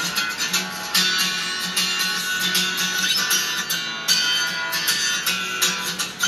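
Acoustic guitar strummed in a steady rhythm, heard through a television's speaker.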